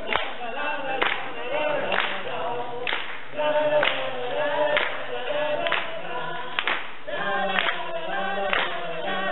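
A small group of voices singing unaccompanied, with hand claps keeping time about once a second.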